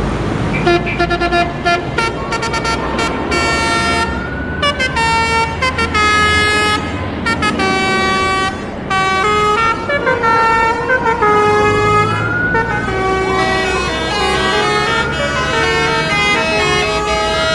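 Basuri musical bus horn playing a tune of rapid short toots and held notes, with repeated rising siren-like whoops, over a steady road-traffic rumble.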